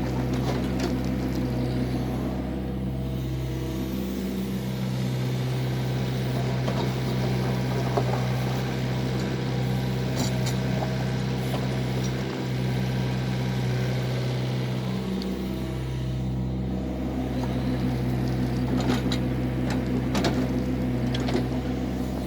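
Excavator engine running steadily, its pitch dipping briefly a few times, with scattered clicks and knocks over it.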